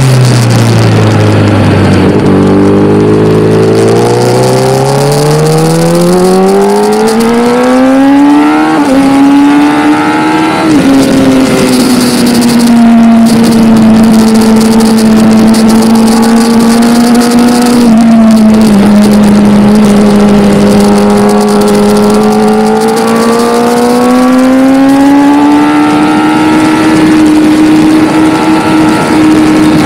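Kawasaki ZX-10R's inline-four engine heard from on board. Its note climbs steadily for the first ten seconds or so as the bike accelerates, with a brief dip partway up. It then drops and holds a steady note while cruising, and rises gently again near the end.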